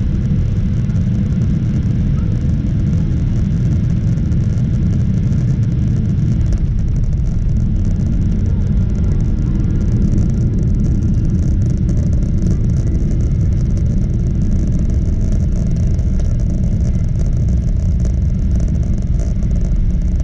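Steady, loud low rumble inside the cabin of a Boeing 777-300ER during landing: its engines and the rush of air and runway carried through the airframe.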